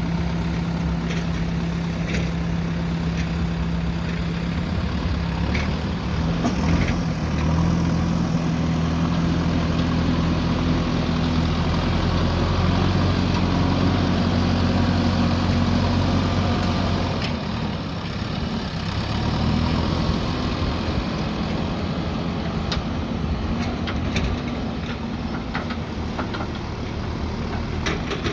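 JCB backhoe loader's diesel engine running under working load, its note rising about a quarter of the way in, holding, then easing off a little after halfway. Occasional short knocks and clicks sound over it.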